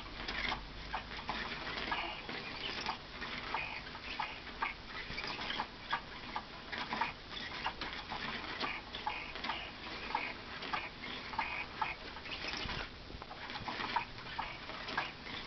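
Irregular light clicking and rattling, a few taps a second, from a cat batting at a toy.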